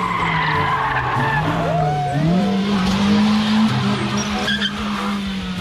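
A car's tyre squealing as the front wheel spins in a burnout, the engine held at high revs.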